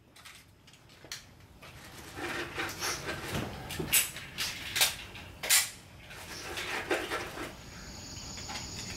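Ammunition and shooting gear being handled on a wooden range bench: irregular small clicks and clatters, busiest in the middle few seconds.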